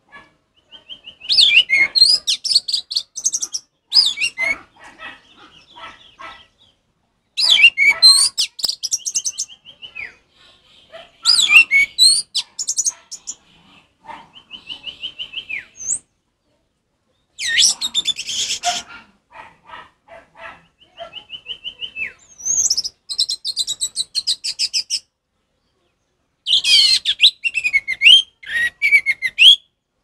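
Orange-headed thrush (anis merah) singing its full song: about six phrases of a few seconds each, made of rapid, varied high whistles and short trills, with brief pauses between them.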